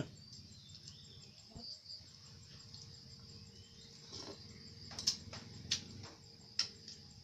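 Night insects trilling steadily in a high continuous chorus, with a few sharp clicks and knocks in the second half.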